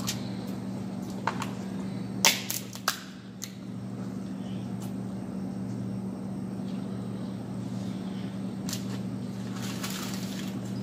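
Eating and shell-peeling sounds: a few sharp clicks and crackles as gloved hands peel boiled shrimp and pick at corn. The loudest is a cluster of clicks about two to three seconds in, over a steady low hum.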